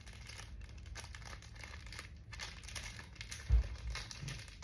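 Packaging crinkling and rustling in the hands as a small item is unwrapped, with a dull thump about three and a half seconds in.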